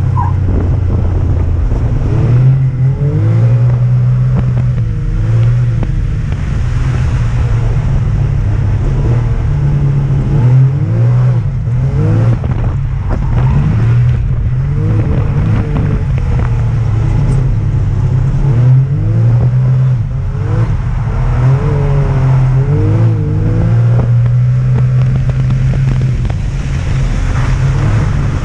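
Side-by-side (SSV) engine heard onboard, its pitch rising and falling over and over as the driver accelerates out of each corner and lifts into the next.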